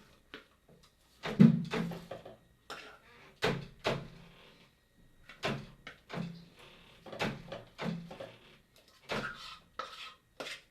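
A spoon stirring and turning sugar-coated popcorn in a cooking pot: a dozen or so irregular scrapes and knocks against the pot.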